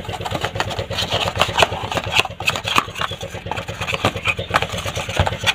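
A small engine idling steadily in the background, with scattered light clicks and rustles of a cardboard mic box being handled.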